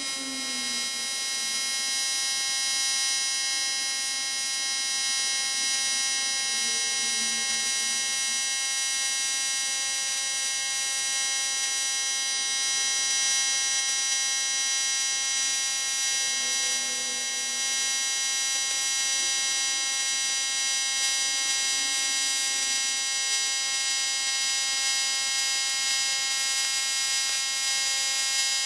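TIG welder arc buzzing steadily as a bead is run along a hairline crack in an aluminium boat hull, the AC arc used for aluminium giving an even, high buzz.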